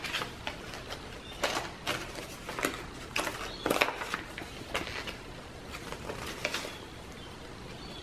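Paper pages of a handmade junk journal being turned and handled, with irregular short rustles and soft taps.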